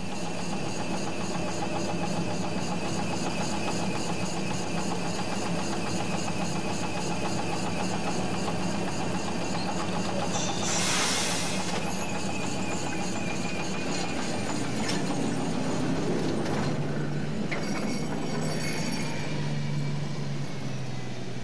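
PCC streetcar sound: a steady running hum, with a short hiss about eleven seconds in and a low tone that rises near the end.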